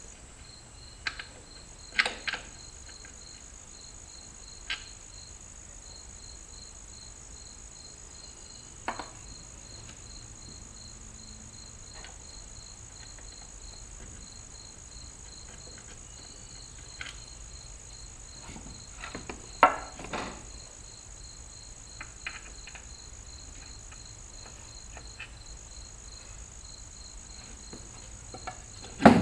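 Crickets chirping in a steady, regular pulse, with scattered knocks and clanks from tire tools working a tractor front tire onto its rim. The loudest clank comes about twenty seconds in.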